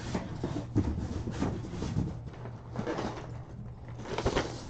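Irregular rustling and knocking of a cardboard LEGO set box being picked up and handled, with a louder scrape about four seconds in, over a steady low hum.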